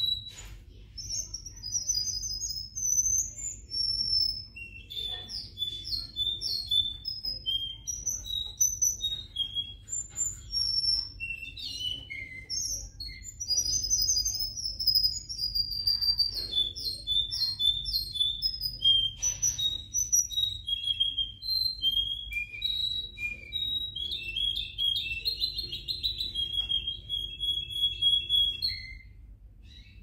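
A Russian song canary singing a long song of whistled notes and trills, many in quick runs of repeated notes, stopping about a second before the end. A steady low hum lies underneath.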